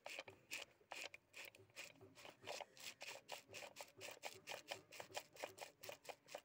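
Carbon brushes and brush-holder springs of a Tata Sumo starter motor scraping and clicking against the armature's commutator as the brush plate is worked on by hand: a faint, quick run of scrapes and clicks, three to five a second.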